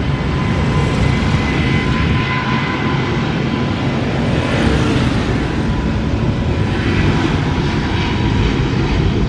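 Boeing 777 airliner's twin jet engines running steadily as it rolls along the runway: a low rumble with a thin steady whine on top.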